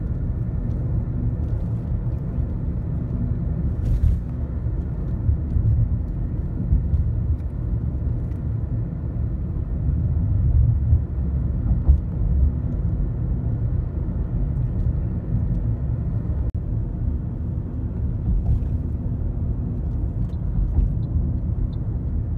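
Steady low rumble of road and engine noise, heard from inside a moving vehicle travelling along a highway.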